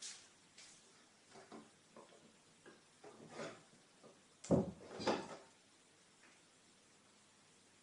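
Scattered faint knocks and taps, then two louder thumps about half a second apart past the middle, followed by only a steady hiss.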